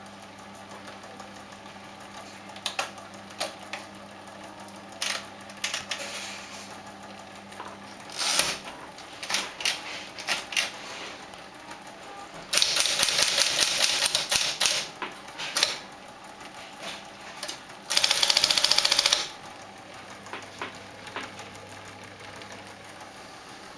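1959 Smith Corona Electric typewriter: its motor hums while single keys strike here and there, and two loud runs of rapid strikes, one about two and a half seconds long and one about a second long, come in the middle.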